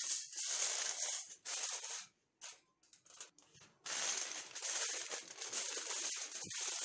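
Aluminium foil crinkling and crackling as hands press and crimp it around the rim of a cooking pot to seal it. About two seconds in the crinkling drops away to a few short crackles, then resumes steadily about four seconds in.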